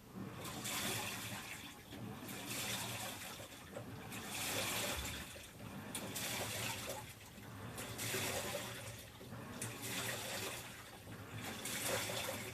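Water sloshing and swishing in the tub of a Panasonic NA-FA10K1 top-loading washing machine, swelling and fading every couple of seconds.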